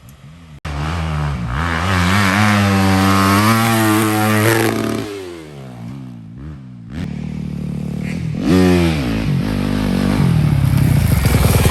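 Dirt bike engine accelerating hard, its pitch climbing, then easing off the throttle about five seconds in. It picks up again with another rising rev about eight seconds in and runs loud near the end.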